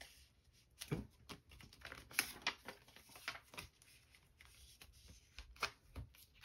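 A photocard being handled and slid into a clear plastic binder sleeve: faint, irregular rustles and light clicks of card against plastic pocket pages.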